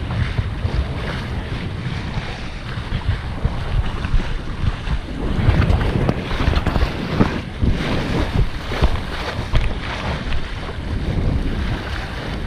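Wind buffeting the microphone over rushing, splashing water, as on a moving boat; it gusts louder from about five seconds in.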